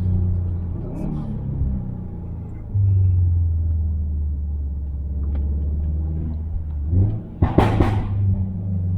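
Subaru WRX STi's turbocharged 2.5-litre EJ257 boxer engine with a muffler-deleted exhaust, running with a steady low drone for several seconds. Near the end comes a quick cluster of sharp pops and bangs from the exhaust on the tuned overrun, then the engine note picks up again.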